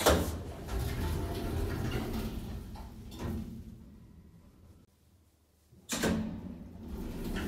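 Old passenger lift: a bang as its doors shut, then the car running with a low rumble that fades away over a few seconds. About six seconds in there is another sudden clunk and the low rumble starts again.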